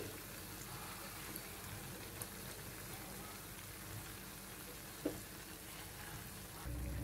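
Jalebi spirals deep-frying in hot ghee, a steady gentle sizzle and bubbling of the fat around them. One brief tick about five seconds in.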